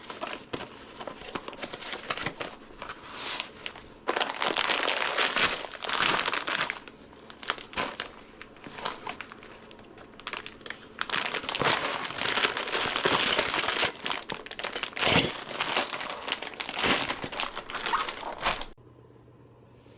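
Packaging being handled while unpacking hoist parts: crinkling and rustling in long stretches, with small clicks and knocks mixed in. It stops abruptly near the end.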